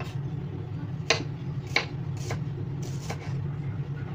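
Kitchen knife slicing red onion on a wooden cutting board: a few sharp knocks of the blade on the board, the loudest about a second in and near two seconds, over a steady low hum.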